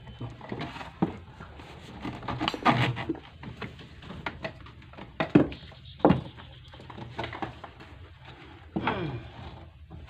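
Plastic casing and base of a washing machine being handled and shifted: irregular knocks, clatter and scraping of hard plastic parts, with a few louder bumps about three, five and six seconds in and near the end.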